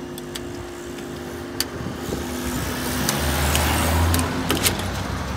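Cars driving over the level crossing after the barriers lift, engines and tyres growing louder, with a car passing close by about three to four seconds in. A steady hum stops about halfway through, and there are a couple of sharp clicks.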